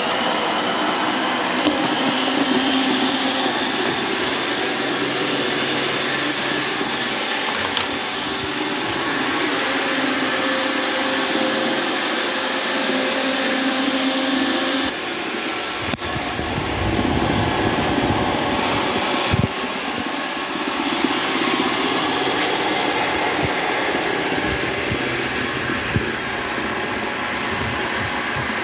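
iRobot Roomba 760 robot vacuum running, a steady whir of its vacuum motor and brushes. About halfway through the sound shifts and takes on more low rumble, with a few sharp knocks.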